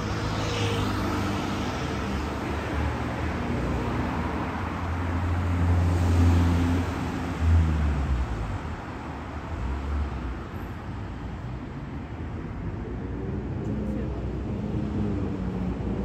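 Road traffic on a city street: car engines and tyres, with one vehicle's engine passing loudest about six to seven seconds in.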